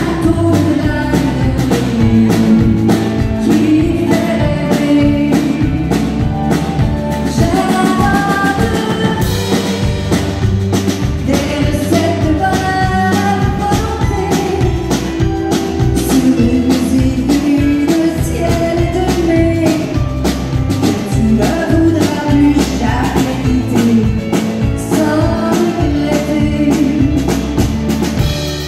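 A woman singing into a microphone with a live band: a drum kit keeping a steady beat, bass guitar and guitar.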